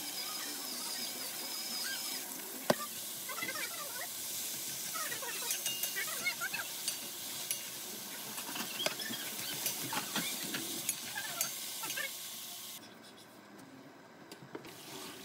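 Sliced vegetables stir-frying in a pan: a steady sizzle with a wooden spatula scraping and clicking against the pan, and one sharp knock about three seconds in. The sizzle stops near the end.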